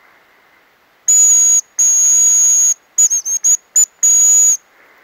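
Hazel grouse decoy whistle blown close by. It sounds two high, thin held whistles, then a few short broken notes and a final held whistle, imitating a hazel grouse's call, with a breathy hiss under each note.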